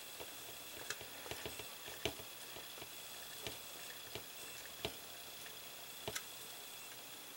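Small precision screwdriver turning tiny screws into a scale model engine's thermostat housing: faint, irregular clicks and ticks as the blade catches and the screws turn, over a low steady hiss.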